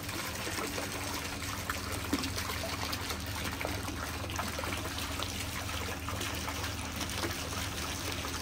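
Garden water fountain trickling and splashing steadily, with a steady low hum underneath.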